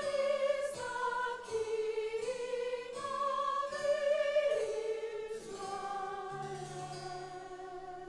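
Slow, classical-style holiday music: a melody of long notes held with vibrato, a new note every second or so, growing softer near the end.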